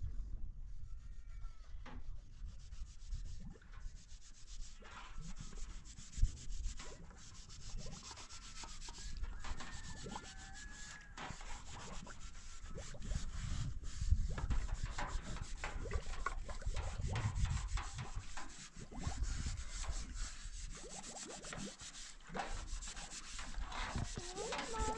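Footsteps crunching over dry, stony ground, with wind rumbling on the microphone and a few faint high chirps.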